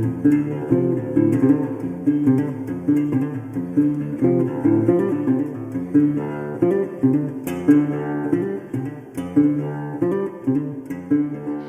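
Background music: plucked guitar playing a steady, repeating pattern.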